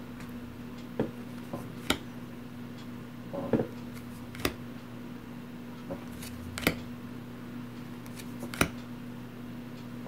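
Cardboard game cards being handled and set down on a table one at a time, giving about seven sharp taps and snaps at uneven intervals over a steady low electrical hum.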